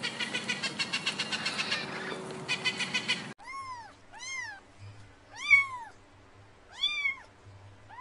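Newborn kittens mewing: four high, thin mews, each rising then falling in pitch, the loudest about halfway through. Before them, for about three seconds, a small parrot chatters in rapid even chirps that stop abruptly.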